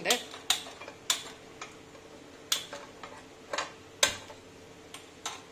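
Light, irregular clicks and knocks, about seven of them, from a nonstick pan and its wooden spatula being handled on a gas stove.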